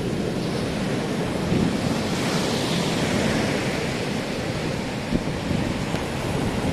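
Ocean surf breaking on the beach, a steady wash of noise that swells about two seconds in, with wind buffeting the microphone.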